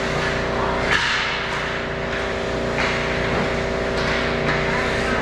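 Ice hockey skate blades scraping and carving the ice, over a steady hum, with a couple of sharp clacks, one about a second in and one near three seconds.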